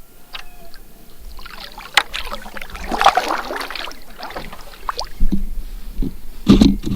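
Canoe being paddled: the paddle dips and splashes in the water, with a few sharp knocks and clicks between strokes.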